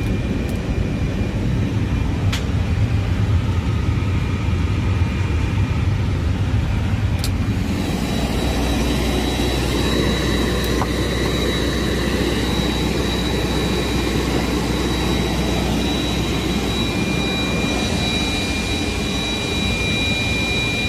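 Steady machinery hum of an Airbus A320's systems running on the ground, with constant high whining tones over it. Two sharp clicks come in the first eight seconds, and the hum changes in character about eight seconds in.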